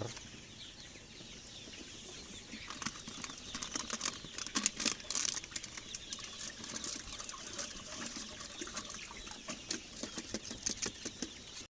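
Water sloshing and splashing in a medicine drum as amoxicillin is mixed into about 40 litres of the chickens' drinking water, in irregular splashes that are busiest in the middle.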